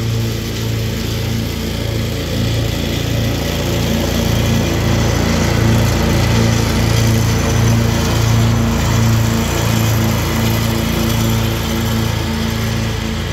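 Ride-on lawn mower's engine running as it cuts grass, mixed with music that has a steady low beat.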